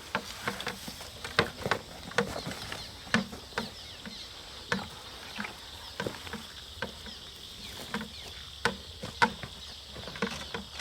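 Irregular clicks, knocks and rustles of people moving about and handling fishing gear, over a steady high-pitched drone.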